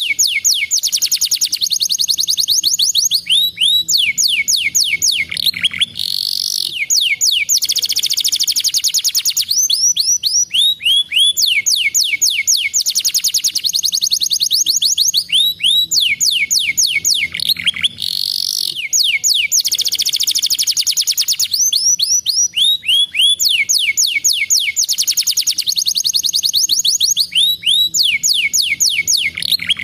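Canary singing a long, continuous song of fast rolling trills and quick sweeping whistles, high-pitched and loud. The same run of trills comes round again about every six seconds.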